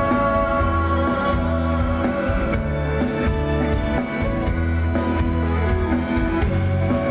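Live band playing on stage, with drum kit and guitar, heard from among the audience.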